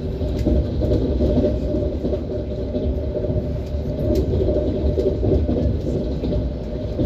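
ES1P Lastochka electric train running on the rails: a steady low rumble of its wheels, with occasional faint knocks from the track.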